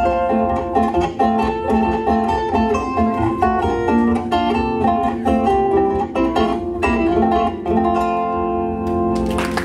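Concert zither played live: a quick plucked melody over chord accompaniment, ending about two seconds before the end on a held final chord that rings out. Applause breaks in just as the chord fades.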